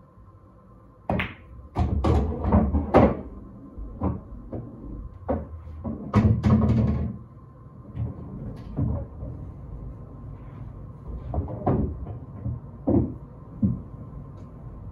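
Pool balls on a Diamond pool table: a cue strike about a second in, then quick ball-on-ball clacks and a heavy rumble as a ball drops into a pocket. A second cluster of knocks and rumbling comes around six seconds in, followed by scattered lighter knocks.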